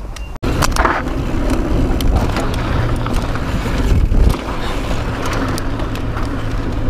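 Mountain bike riding fast down a dirt trail: tyres rolling over dirt and rocks, with the bike rattling and clicking over the bumps and wind rushing over the microphone. The sound starts abruptly about half a second in.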